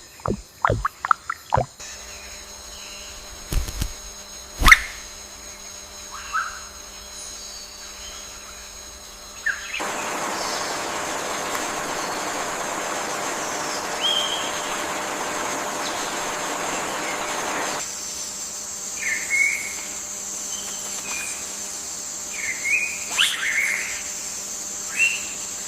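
Forest ambience: scattered short bird chirps over a steady high insect buzz. A stretch of even hiss in the middle starts and stops abruptly.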